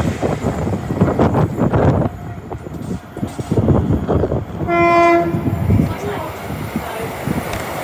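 A train horn sounds one short single-tone note about five seconds in, over the rumble and clatter of a passing train.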